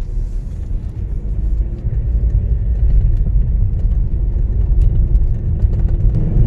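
Inside the cabin of a 2013 Mazda MX-5 (NC3) on the move: steady low rumble of its 2.0-litre MZR inline-four and road noise, growing louder about two seconds in.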